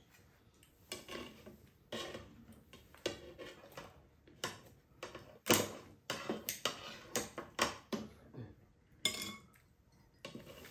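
Metal tongs and kitchen scissors clinking and scraping against a ceramic plate as a pizza is cut and served: an irregular run of sharp clicks and clinks, some with a short ring.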